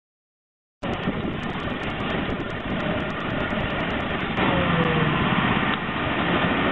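A 3,500 PSI pressure washer turned down to about 400 PSI and a 16-gallon shop vacuum running together, water spraying and being sucked back up, in a steady noisy din. It starts suddenly just under a second in and gets louder about four and a half seconds in.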